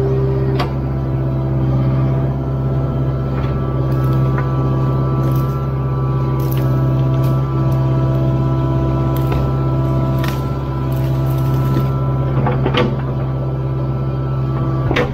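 Kubota KX057-4 compact excavator's diesel engine running steadily under work, with several sharp knocks and cracks of the machine working through wood and debris.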